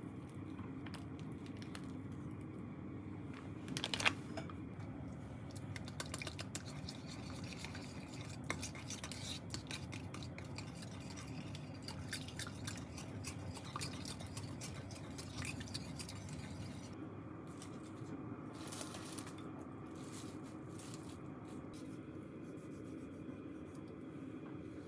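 Kitchen handling sounds: a small wire miso whisk scraping in a tub of miso and clinking against a pot of soup and metal utensils. Scattered light clicks and one sharper click about four seconds in sit over a steady low hum.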